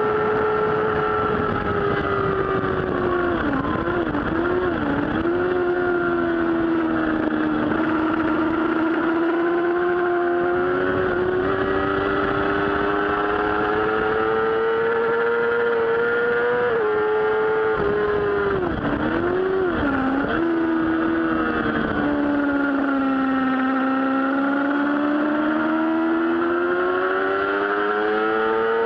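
Yamaha R6 sportbike's inline-four engine running at high revs on track, with wind rushing past the bike. The engine note drops and wobbles about three seconds in and again near twenty seconds as the bike slows for corners, then sags through a long bend and climbs back up near the end.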